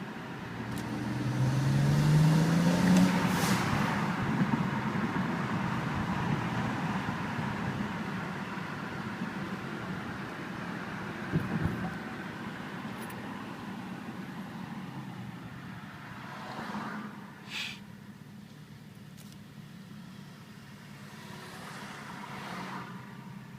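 BMW 335i's turbocharged straight-six accelerating, its pitch rising over the first few seconds, then running on and easing off. A brief knock comes about eleven seconds in. A short sharp hiss of air comes about seventeen seconds in, with a weaker one near the end, as the throttle is lifted: the Tial blow-off valve venting, with an odd whoosh that the owner thinks is boost not venting properly and being dumped into the throttle body.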